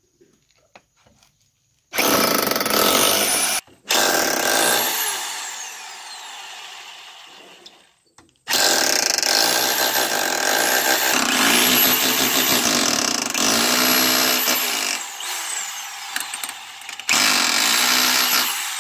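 Corded rotary hammer drill boring fixing holes into a painted masonry wall, run in bursts: a short run about two seconds in, a second that winds down slowly over a few seconds, then a long run of about eight seconds and a last short one near the end.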